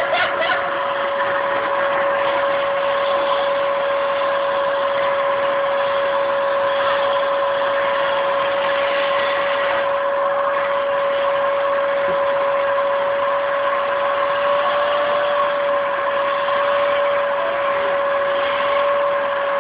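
Vacuum cleaner running steadily: a constant motor whine over a rushing hiss, wavering slightly in pitch about fifteen seconds in.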